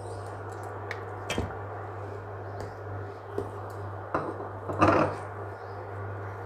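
A metal spoon stirring split, grainy milk with mawa in a steel pan: wet stirring with scattered knocks and scrapes of the spoon on the pan, loudest about five seconds in, over a steady low hum.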